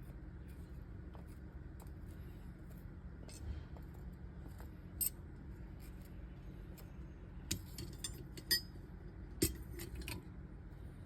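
A few light metallic clinks and taps, scattered and irregular, from the hand-forged steel hook and tools being handled while the hook is coated in beeswax, over a steady low hum.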